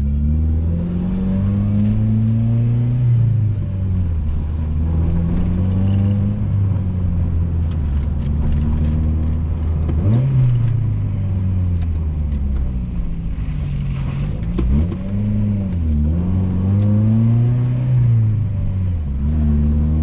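A 1990s Honda's four-cylinder engine pulling through the gears, heard from inside the cabin: the engine note rises steadily under acceleration and drops sharply at each upshift, several times over.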